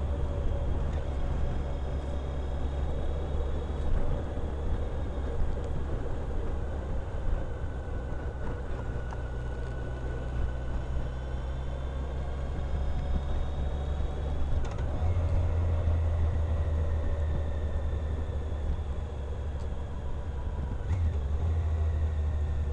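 Motorcycle riding at a steady speed: engine and wind noise, with a faint whine that slowly rises and falls in pitch. The low engine note shifts a little over halfway through.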